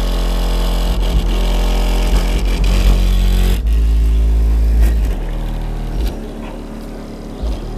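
A 12-inch car subwoofer, driven by a Skar RP2000 amplifier in a box tuned to 32 Hz, playing bass-heavy music loud, heard from outside the car. The music cuts out for an instant about three and a half seconds in, and the deep bass gets quieter after about five seconds.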